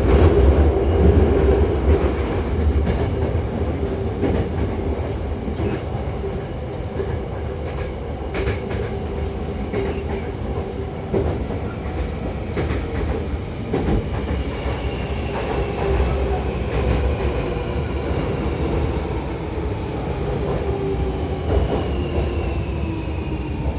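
Hankyu 8000-series electric train running, heard from inside the car: a steady rumble with wheels clicking over rail joints. In the second half a faint whine slowly falls in pitch as the train slows.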